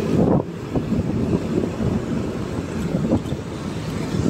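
Wind buffeting the microphone of a moving motorcycle, over a steady rumble of engine and road noise.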